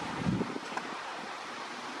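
Roadside ambience: steady wind noise on the microphone over road traffic, with a brief low rumble about a quarter of a second in.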